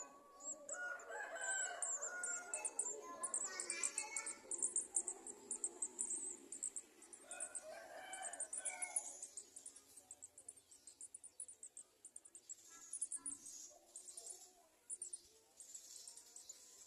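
Rapid, high-pitched chirping from small birds, garden sunbirds at the nest. A rooster crows in the background twice, a long crow starting about a second in and a shorter one around eight seconds.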